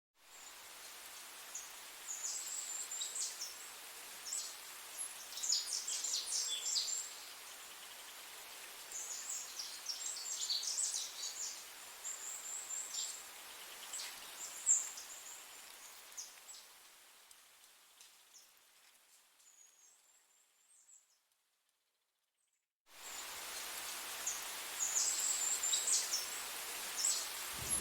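High-pitched bird chirping in quick repeated runs over faint background hiss. It fades away a little past the middle, drops to near silence for a few seconds, then starts again abruptly.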